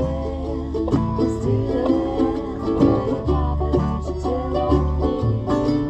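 Acoustic bluegrass band jamming, with banjo and guitar picking a tune over low held notes.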